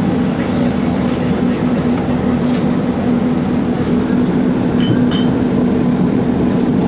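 Tatra T3 tram running, heard from inside the car: a steady rumble of the wheels on the rails with a constant low hum, and a few faint brief squeaks about five seconds in.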